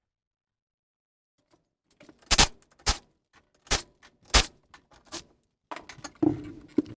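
Tools knocking against metal while working on a golf cart's front wheel hub: five sharp, loud knocks a half-second to a second apart, then a denser clatter near the end.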